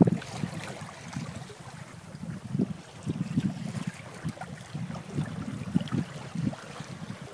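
Water sloshing and lapping against the hull of a small Michalak AF3 sailboat under sail, rising and falling irregularly with the chop. A single sharp knock comes right at the start.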